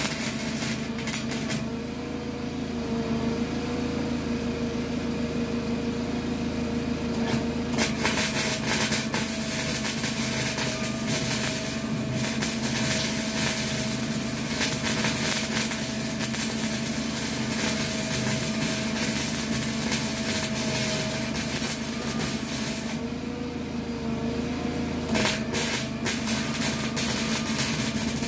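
Small 120-volt wire-feed welder arc crackling as it lays weld into rusty sheet-metal floor, in long stretches with the trigger let go between them, over a steady hum. The arc runs from about a third of the way in, stops briefly near the end, then starts again.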